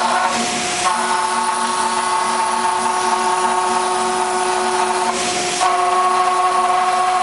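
A five-axis CNC wood router running: a steady machine whine made of several tones over a cutting hiss. The tone pattern breaks and shifts about half a second in and again about five seconds in, as the machine changes its cut.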